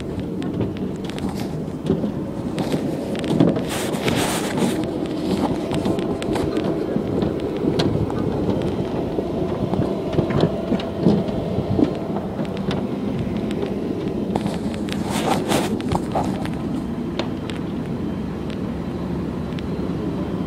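Steady low rumble of aircraft noise on an airport apron, with a few brief clatters about four seconds in and again around fifteen seconds.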